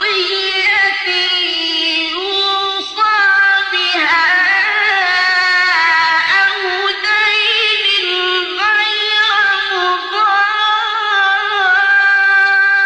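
A male reciter singing Quranic verses in the melodic mujawwad style, drawing out long, high notes whose pitch slides and wavers with hardly a break.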